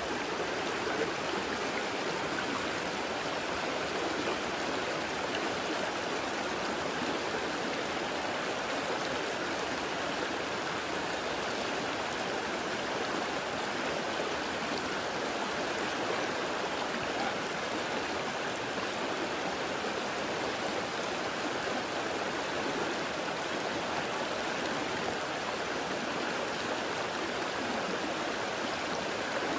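Creek water rushing and babbling, a steady even noise.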